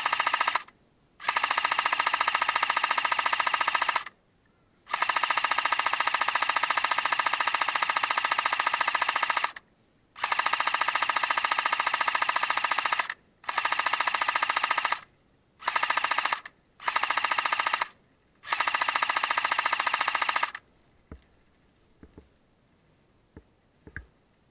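Airsoft gun firing on full auto in long bursts, some lasting several seconds, with short pauses between them. About eight bursts in all, the last ending a few seconds before the end, followed by a few faint clicks.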